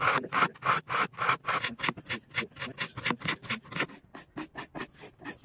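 Steel kitchen knife blade drawn quickly back and forth through a pull-through sharpener's slot, about five strokes a second. A little before four seconds in, the strokes turn quieter and lighter as the blade is run along a compound-loaded strop.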